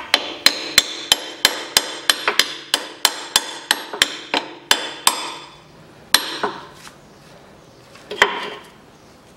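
Hammer tapping a metal drift to drive a new drive-shaft oil seal deeper into its bore in a Toyota transaxle case: a quick run of sharp, ringing metal strikes, about three a second, for some five seconds, then two more single blows spaced out near the end.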